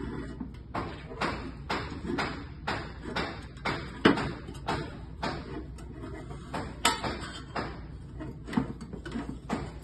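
A run of short, sharp clicks and knocks from smart lock parts being handled and fitted together, about two a second and somewhat uneven, the loudest about four and seven seconds in.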